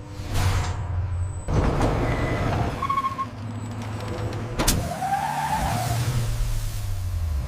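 Road roller's engine running with a steady low drone. About two-thirds of the way through comes a sharp clank, followed by a brief whine that rises and falls.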